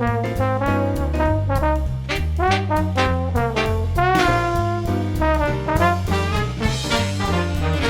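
Upbeat swing-style background music with brass instruments over a walking bass and a steady beat.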